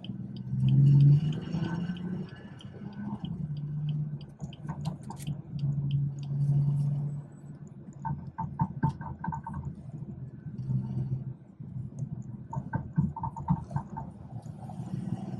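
BMW 440i's B58 turbocharged inline-six running on the move, its low engine note swelling and easing, loudest about a second in and again in the middle.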